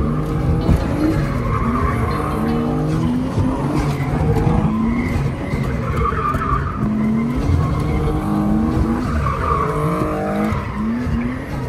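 Drift car heard from inside the cabin, its engine revving hard with the pitch climbing and dropping again several times. Tyres squeal as the car slides.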